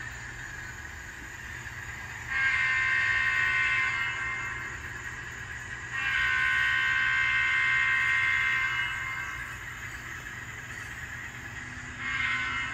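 Sampled multi-chime diesel horn from the ESU LokSound sound decoder in an N scale Alco C420 model, played through its small onboard speaker: two long blasts, then a shorter third one starting near the end. A steady low rumble of the decoder's diesel engine sound runs underneath.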